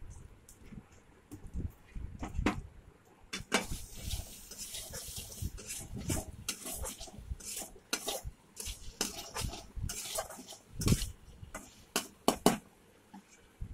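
A metal spatula scraping and clinking irregularly against a kadai as frying tomatoes, garlic and spices are stirred.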